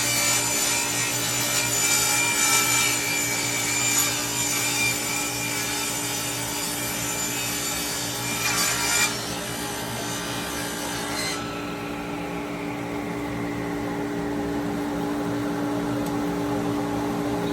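Table saw ripping an air-dried western red cedar board, the blade cutting through the wood until about eleven seconds in. Then the cut ends and the blade's whine falls slowly as it winds down, over the steady hum of a dust collector.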